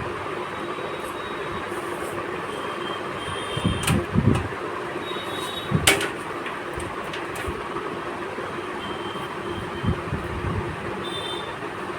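Steady background hum with a few knocks and clunks, the loudest about four and six seconds in, from computer parts and case panels being handled during assembly.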